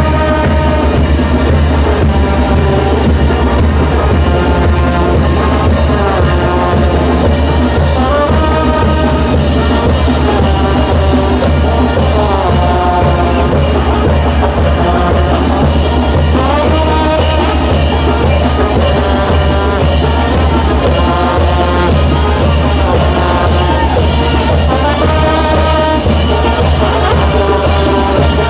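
Mexican brass band playing a chinelo dance tune: wind instruments carry the melody over a strong low bass line and a steady drum and cymbal beat.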